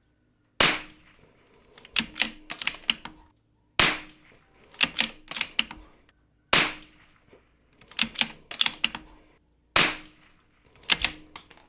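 Savage Mark II bolt-action .22LR rifle firing four single shots about three seconds apart. Each shot is followed by quick clicks as the bolt is worked to eject the case and chamber the next round.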